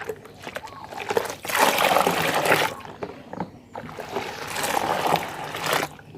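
Liquid fertilizer mixture being stirred in a container: water sloshing and trickling, in two louder spells.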